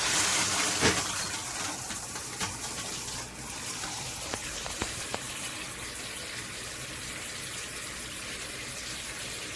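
Handheld shower head spraying water steadily, strongest in the first second, with a few faint clicks.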